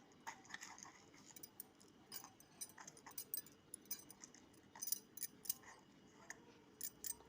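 Faint, irregular light clicks and rustles of whole spices and herbs being handled and dropped into a container, with a sharper click about five seconds in.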